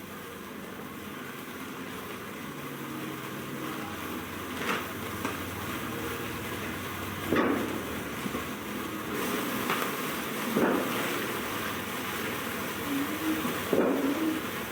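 Fireworks going off: a steady hiss with a few scattered sharp pops, about five over the stretch.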